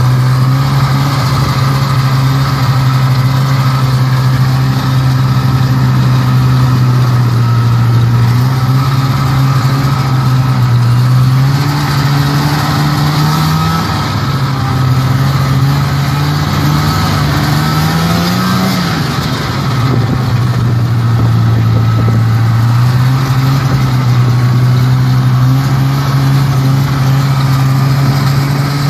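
Snowmobile engine running at a steady speed, its pitch rising twice in the middle as the throttle is opened and falling back each time, then holding steady again.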